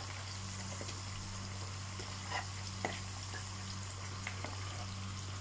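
Sliced green peppers deep-frying in oil in a wok, a steady sizzle, with a few faint clicks of a wire strainer moving in the pan.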